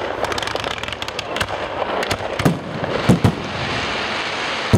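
Aerial fireworks bursting: a dense run of quick pops and crackles over a steady rumble, with several loud bangs, two of them close together a little past halfway and another at the end.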